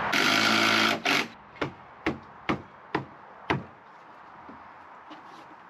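A power tool runs for about a second and stops, followed by a string of five sharp knocks about half a second apart.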